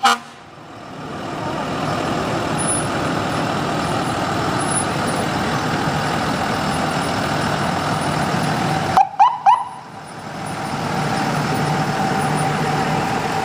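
Ambulance engine running as the ambulance rolls slowly past. A short, loud siren chirp sounds right at the start, and three quick chirps come about nine seconds in.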